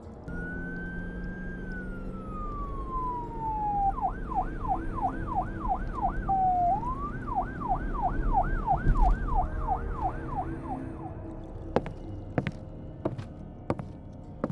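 Police car siren: one long falling wail, then a fast yelp sweeping up and down about two and a half times a second, which stops about eleven seconds in. A few sharp knocks follow near the end.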